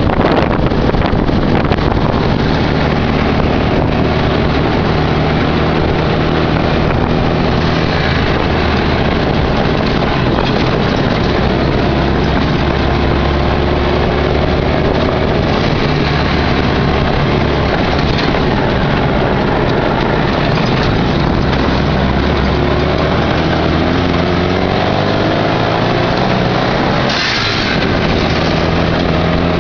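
Off-road buggy's engine running while driving a dirt track, its pitch rising and falling with the throttle over a steady rush of road noise. Near the end the engine note breaks off briefly and picks up again lower.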